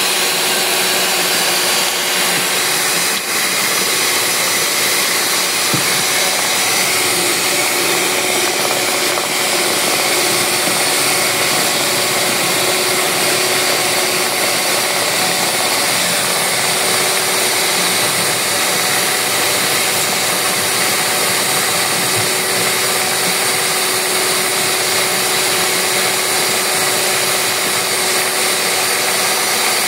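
Mondial Prática 400 W stand mixer running at a steady speed, its twin beaters whisking a thin liquid batter; an even motor whine that does not change.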